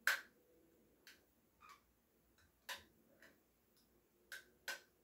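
Dental floss snapping through the tight contacts between teeth: about seven short, sharp clicks at uneven intervals, the loudest right at the start.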